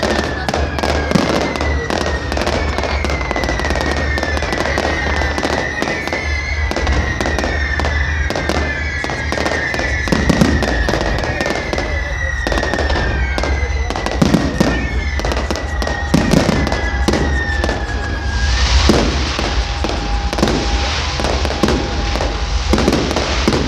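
Fireworks display: a rapid, unbroken string of bangs and pops with many whistling fireworks, each whistle sliding down in pitch. About 18 seconds in, the whistles stop and a dense crackling hiss takes over under the bangs.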